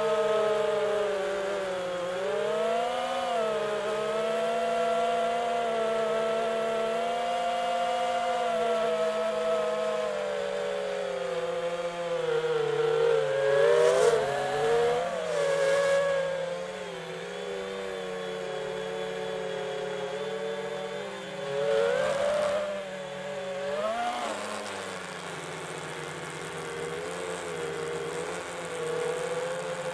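FPV quadcopter's brushless motors and propellers whining as heard from the onboard camera, the pitch rising and falling with throttle. Louder throttle punches with rising pitch come about halfway through and again about two thirds in, then the motors settle to a steadier, lower whine.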